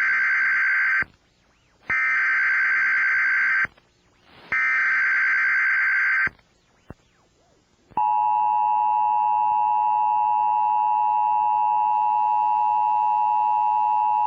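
Emergency Alert System broadcast tones for a child abduction alert. Three screechy data bursts of the alert header, each about a second and a half long with short gaps between them, are followed by a pause. About eight seconds in, the steady two-tone attention signal begins and holds.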